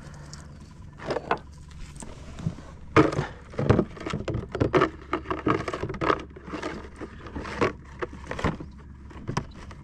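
Cast net being handled over a plastic bait bucket: a run of irregular rattles and knocks as the net, its line and its lead weights clatter against the bucket and the kayak.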